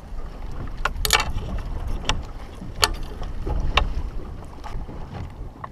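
Wind buffeting the microphone and water moving against a small boat's hull at sea, with about half a dozen sharp clicks and knocks scattered through.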